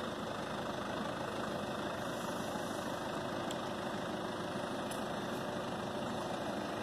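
Farm tractor engine running steadily at about idle.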